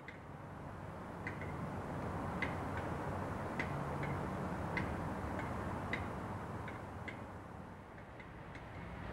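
Steady low hum of idling diesel locomotives, with a sharp tick repeating a little more often than once a second.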